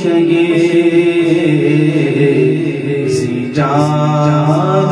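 A man singing a naat into a microphone, unaccompanied and with an echo effect on the voice: long, wavering, ornamented held notes, with a new phrase beginning about three and a half seconds in.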